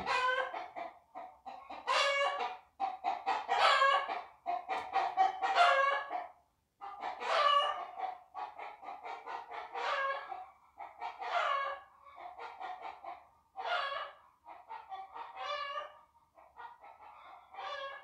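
Chickens clucking and cackling, short repeated calls about once or twice a second with brief pauses between them.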